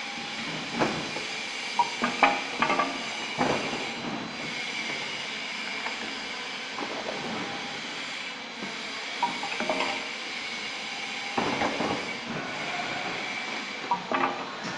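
Liquid-filling machine running with a steady mechanical hiss and hum, broken by irregular clacks and knocks, the loudest in a cluster in the first few seconds and again near the end.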